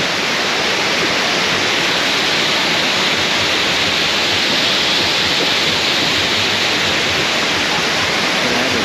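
Neer waterfall's falling water: a loud, steady rush of noise that holds even throughout.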